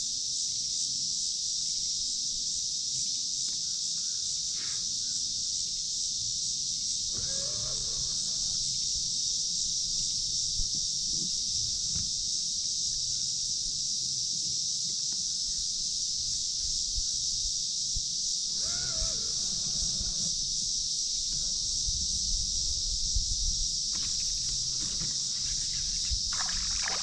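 Steady high-pitched drone of an insect chorus, with a bird calling briefly twice and a few light clicks near the end.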